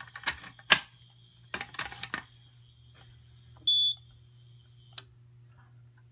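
A few sharp clatters and knocks in the first two seconds, then a single short high electronic beep from the Fire-Lite MS-9200 fire alarm control panel's keypad as it is operated, and one sharp click about five seconds in.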